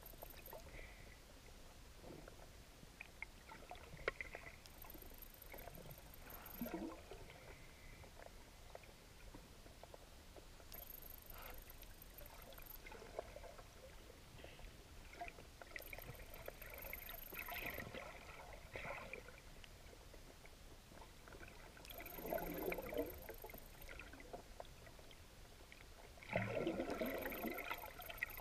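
Faint underwater noise picked up through a camera housing. Noisy gurgling bursts come every few seconds, with a few sharp clicks, and the strongest burst comes near the end.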